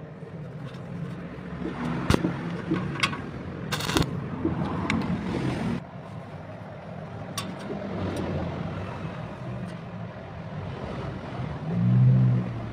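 Electric arc welder humming steadily, with sharp cracks and a hissing, sizzling arc that cuts off suddenly about halfway through.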